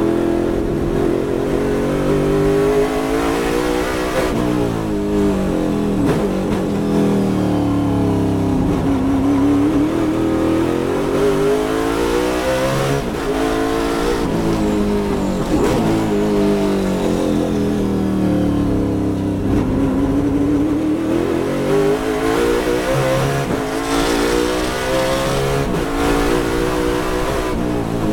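Ford Mustang race car's V8 engine heard from inside the cockpit under full race load: the engine note climbs through the gears, lifting off and dropping in pitch for corners several times before pulling hard again.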